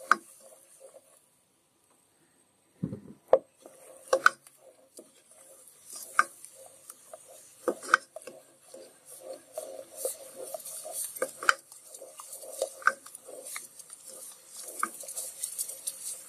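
A spatula stirring onion, garlic and ginger paste frying in oil in a nonstick pot, with irregular scrapes and knocks against the pan. The stirring pauses briefly about a second in.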